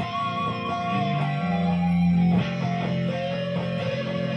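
Jackson electric guitar playing a lead: held notes with vibrato that slide from one pitch to the next, over low sustained notes that change every second or so.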